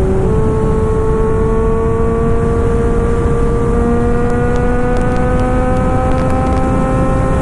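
Kawasaki Ninja 1000 in-line four with an SC Project full exhaust system, pulling hard under throttle: the engine note steps up just after the start, then rises slowly and steadily as the bike accelerates, over heavy wind rush on the microphone.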